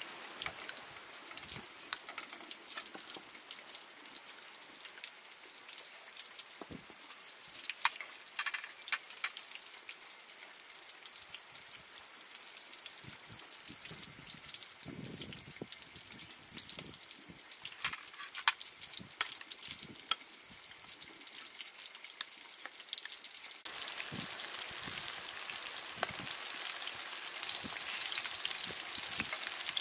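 A faint steady hiss with scattered light clicks and taps as sugar is added to a glass bowl of crushed peanuts. About 24 seconds in, it gives way to the louder, steady sizzle of tofu pieces frying in hot oil.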